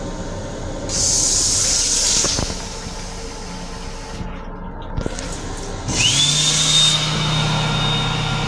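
Faucet in a train's lavatory sink hissing as the water runs. About six seconds in, a small electric motor spins up with a quick rising whine that settles into a steady high whine over a low hum. The train's running rumble is underneath throughout.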